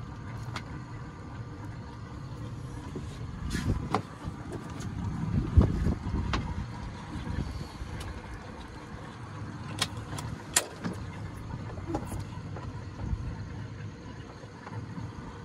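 Boat motor idling with a steady low rumble, broken by a few sharp knocks and clicks; the loudest is a dull thump about five and a half seconds in.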